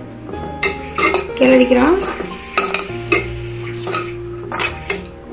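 Steel ladle scraping and knocking against a kadai, several strokes, as a sautéed onion-tomato masala with curry leaves and coriander is stirred.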